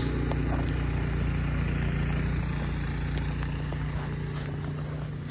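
Snow removal machine running with a steady low motor hum that slowly fades.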